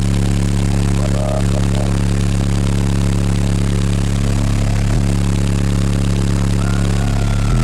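Twelve 12-inch Sundown ZV4 subwoofers playing one loud, steady low bass note, heavily distorted on the recording by the bass pressure. The note changes pitch right at the end.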